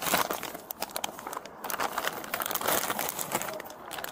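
Rustling and crinkling handling noise: a run of irregular small crackles and clicks.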